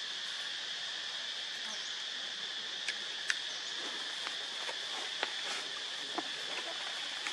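Steady chorus of insects, one continuous high buzzing drone, with a few faint light clicks and rustles between about three and six seconds in.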